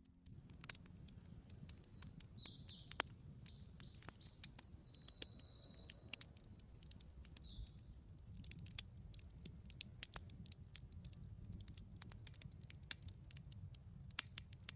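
Campfire crackling with scattered small pops. A small songbird sings quick, high trilling and chirping phrases through the first half.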